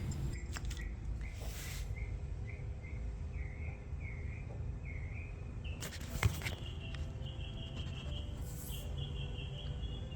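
Outdoor background with a bird giving a series of short, repeated chirps about twice a second, then a steady high-pitched insect or bird trill. A single sharp click or knock sounds about six seconds in.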